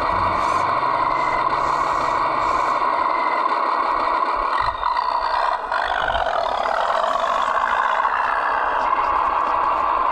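Radio-controlled model tractor working, a steady mechanical whine with rattling that shifts briefly about halfway through.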